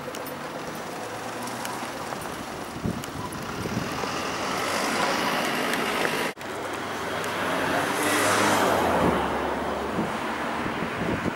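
Road traffic moving through an intersection: cars drive by, one passing close and loudest about eight seconds in. The sound cuts out for an instant a little past halfway.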